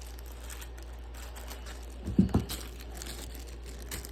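Faint crinkling and rustling of plastic packaging and case parts being handled, with a dull thump a little over two seconds in.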